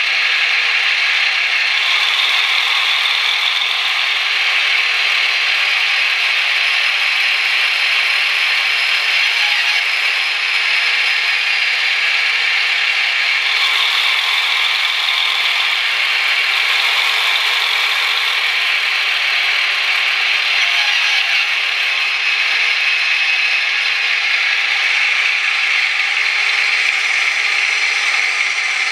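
Sound decoder of a Piko V200.1 (BR 221) H0 model locomotive playing its diesel engine sound with both engines running, through the model's small loudspeaker: a steady, tinny mechanical drone with no bass. It is far too loud and the sound is not very good.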